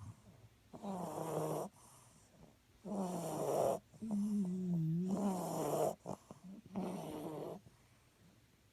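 English bulldog snoring in its sleep: a regular series of pitched snores, each about a second long, with a longer, wavering one in the middle.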